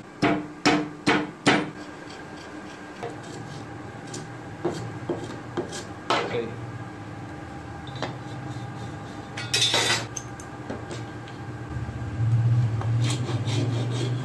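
A laminated plywood block knocked four times in quick succession on a wooden workbench, then scattered knocks and clinks of metal tools, such as a steel try square, being handled and set down on the bench. A steadier low rumble near the end.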